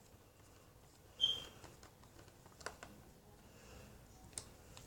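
A few sparse clicks and light taps from the plastic laptop case and its parts being handled during reassembly, with a brief high squeak about a second in.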